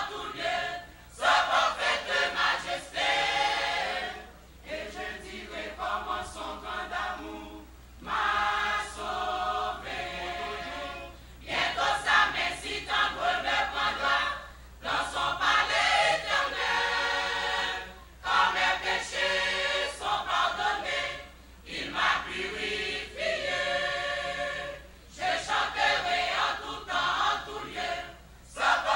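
Mixed church choir of men and women singing together, in sung phrases with short breaks between them.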